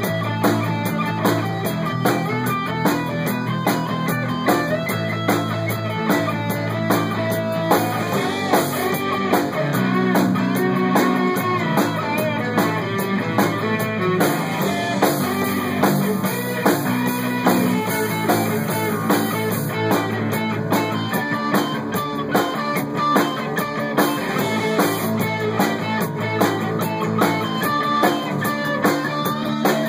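Rock band playing an instrumental passage: an electric guitar lead, from a white Ibanez guitar, over bass guitar and drums.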